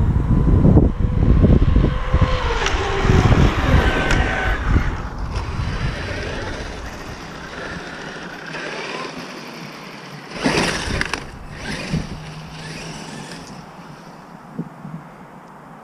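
Traxxas X-Maxx electric RC monster truck running on asphalt: loud rumble of tyres and wind with a motor whine that falls in pitch over the first few seconds. It then fades to a quieter drive, with two short bursts of noise about ten and twelve seconds in.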